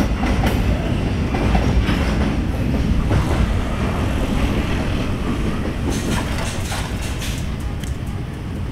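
Freight wagons of a long coal train rolling past: a steady rumble of steel wheels on rail with clickety-clack over the rail joints, the clicks thickening near the end as the last wagon goes by and the sound slowly eases.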